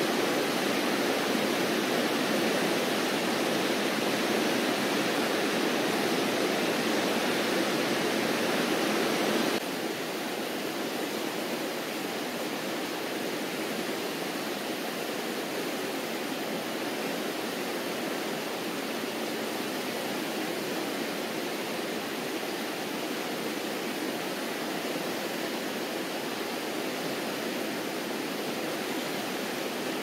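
Steady rushing of a fast-flowing river swollen with snowmelt, its white water churning. The rush drops a little in level about ten seconds in.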